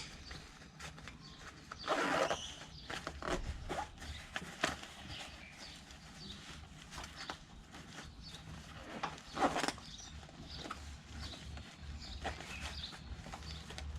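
Handling noises from a fabric tool roll bag: scattered light clicks and knocks, with two louder rustles about two seconds in and again near nine and a half seconds, over a steady low hum.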